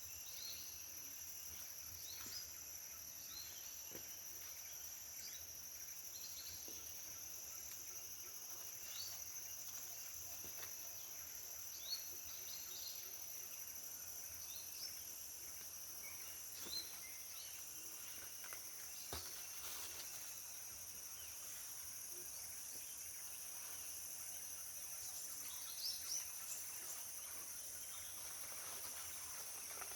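Tropical forest ambience: insects, likely cicadas, drone steadily at a high pitch in two layers, while short, quick bird chirps come and go throughout.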